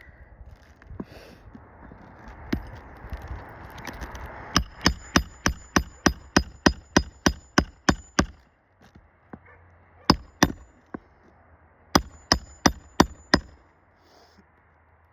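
Hammer blows nailing down a 3-tab asphalt roof shingle: a quick run of sharp, ringing strikes at about four to five a second, then two single blows, then a short run of about six more near the end. Some scraping and handling comes before the blows.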